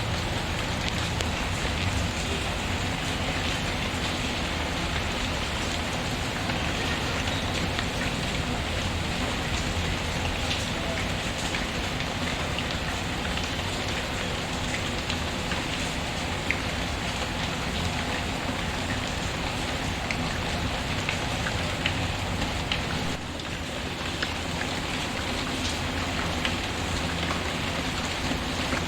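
Steady rain falling, a constant even hiss, with scattered small crackles and pops from a wood fire in a fireplace. The whole sound drops briefly about two-thirds of the way through.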